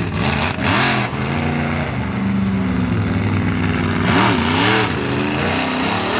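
Monster truck engine revving hard through a freestyle run. Its pitch swings up and down, with loud rushes of throttle about half a second in and again around four seconds in.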